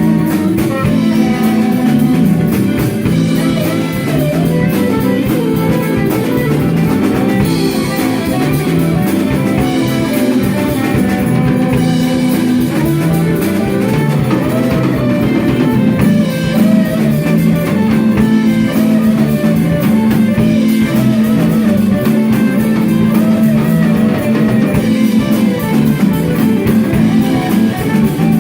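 Rock band playing an instrumental: electric guitar lines over a bass line and drum kit, steady and loud.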